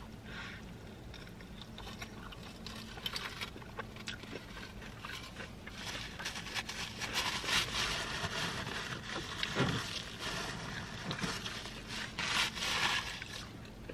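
Close-up chewing of a mouthful of burrito: soft, wet, crackly mouth sounds with many small clicks, growing louder and busier about halfway through.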